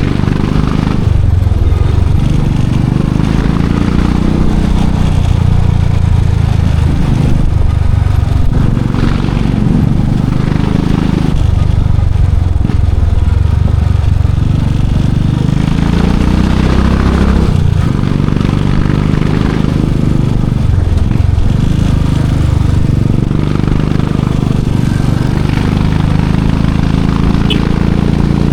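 Royal Enfield Classic 500's single-cylinder engine and exhaust running. Its pitch rises and falls with the throttle, and it briefly drops off several times.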